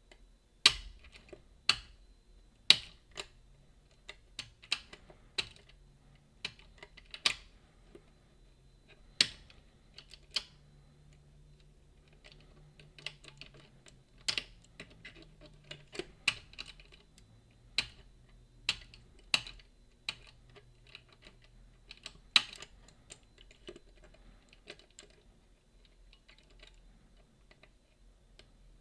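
Irregular sharp metallic clicks and taps of a lever-lock pick working the levers of a Boda 429 eight-lever deadbolt while picking it.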